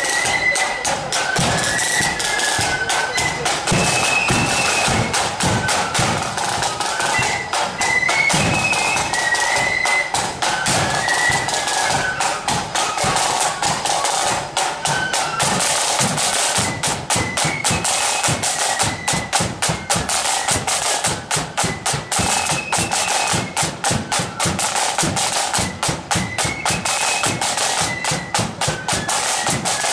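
Marching flute band playing: flutes carry a tune over rapid snare drumming and a steady bass drum beat.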